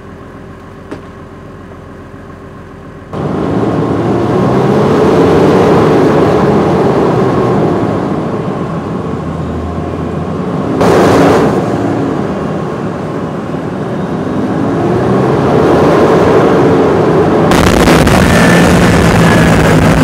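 Small Unit Support Vehicle, a tracked over-snow carrier, running: a quieter steady engine hum at first, then from about three seconds in loud engine and track noise as it drives, its pitch rising and falling slowly, loudest around the middle.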